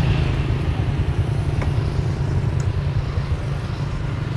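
Motorbike engine running with a steady low rumble, and two faint sharp clicks about a second apart in the middle.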